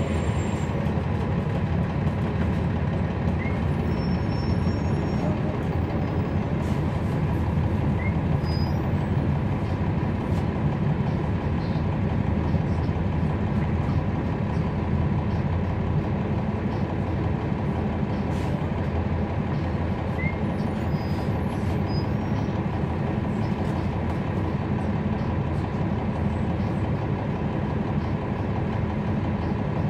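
Cummins ISL9 diesel engine of a 2011 NABI 40-foot transit bus running steadily, heard from inside the passenger cabin as a low, even drone. A few faint short squeaks sound over it.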